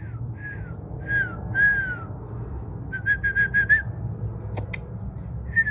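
Clear whistled notes at one pitch: a few falling slurs, then a quick run of short repeated notes, then another run near the end. There are two sharp clicks about four and a half seconds in, over a steady low rumble.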